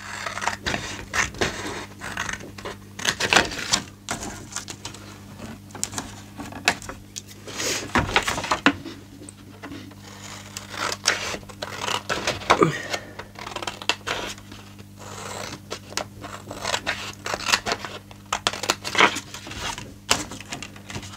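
Scissors snipping short cuts into a sheet of patterned paper along its score lines, with the paper rustling and sliding as it is turned and shifted on a scoring board. The snips and rustles come irregularly throughout, over a faint steady low hum.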